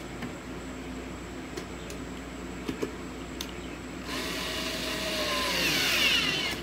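Ryobi cordless drill/driver running on a screw in a steel mounting bracket, starting about four seconds in, its pitch falling and its sound getting louder as it works. Before that, a few light clicks of parts being handled.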